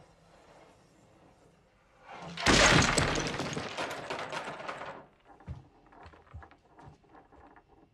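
A chess set crashing to the floor: a sudden loud clatter of many pieces about two and a half seconds in, lasting a couple of seconds, then a scatter of single clicks and knocks as loose pieces bounce, roll and settle.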